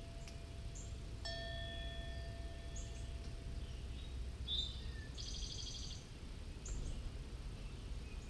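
A doorbell chime struck once about a second in, its tone ringing on and fading over a couple of seconds. Around the middle a wren gives a brief chirp and then a short, quick trill.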